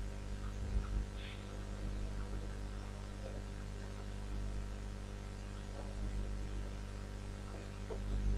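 Steady low electrical mains hum from the recording chain, with a few faint scattered ticks.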